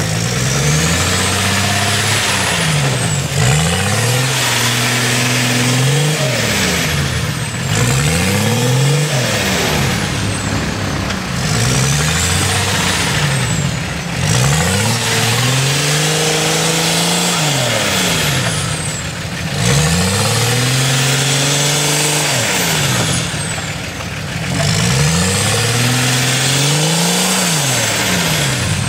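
BMW 2.4-litre straight-six turbodiesel in a UAZ off-roader, revved hard and let fall again and again every few seconds as the truck works through deep mud.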